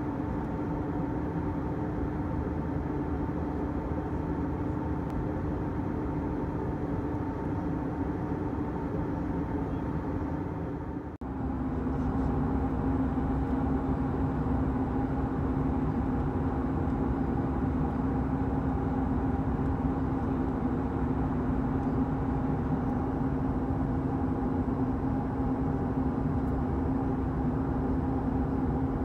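Steady drone of an airliner cabin in flight: engine and airflow noise with a low, even hum in it. About eleven seconds in it drops out for an instant and comes back a little louder.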